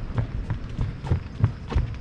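Footsteps of a person walking briskly along a wooden boardwalk: a steady run of low thuds, about three a second.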